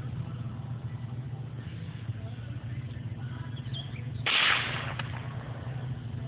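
A single shot from a .22 AR-15-style rifle about four seconds in, cracking and fading within half a second, over a steady low rumble.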